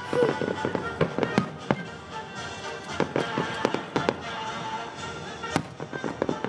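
Fireworks going off: an irregular run of sharp bangs and crackles from aerial shells bursting, with music playing in the background.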